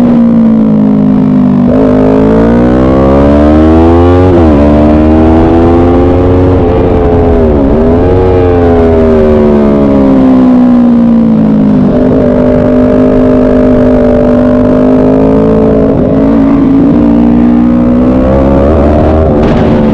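Motorcycle engine heard from onboard at racetrack speed, revving up and down through the gears. The pitch climbs, drops sharply at shifts about four and a half and seven and a half seconds in, winds down, then holds fairly steady through the later part.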